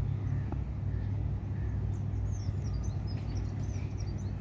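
A steady low rumble, with small birds chirping from about two seconds in.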